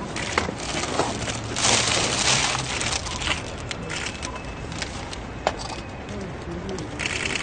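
A plastic bag rustling and soil being poured out of it onto the flowers on a grave, loudest a couple of seconds in and again briefly near the end, with a few scattered sharp clicks.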